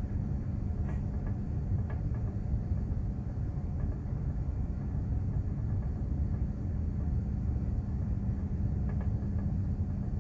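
Steady low rumble and hum of a container ship under way, with a few faint ticks.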